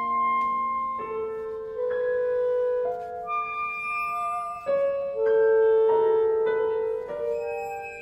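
Chamber ensemble of clarinet, violin, viola, cello and piano playing contemporary classical music. Long held notes overlap one another, with new notes entering every second or so.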